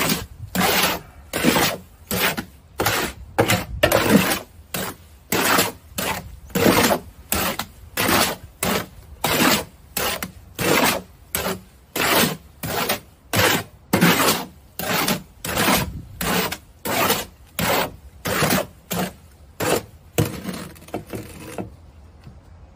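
Steel shovel scraping and turning a sand mix in a metal wheelbarrow, in steady strokes about one and a half a second, each a gritty scrape. The strokes stop near the end.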